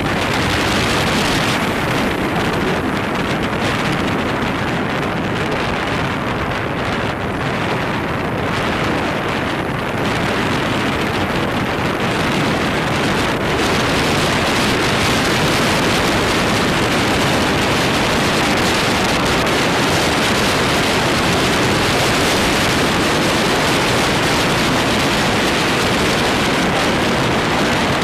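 Loud, steady wind rushing over the microphone as it is carried along a road.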